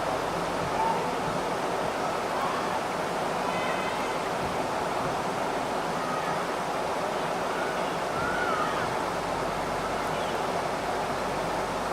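Steady rush of floodwater, an even unbroken noise with a few faint short chirps over it.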